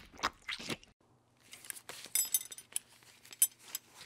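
Logo-animation sound effects: a quick run of short clicks and pops, a brief pause about a second in, then more clicks mixed with bright, glassy tinkles.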